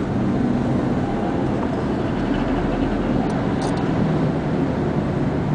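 Steady car cabin noise while driving: the engine running and tyres rolling on the road, with an even low hum.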